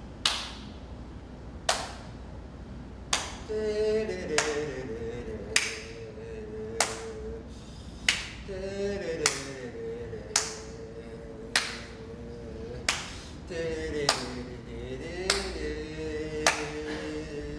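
Steady beat of sharp claps, about one every 1.2 seconds. From about three and a half seconds in, a voice sings held notes over it that dip in pitch and come back up.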